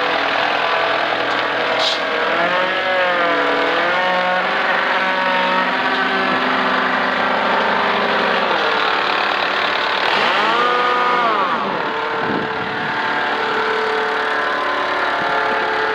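Mustang 2064 skid steer engine running, its speed rising and falling as it is worked. About ten seconds in it revs up sharply and drops back down.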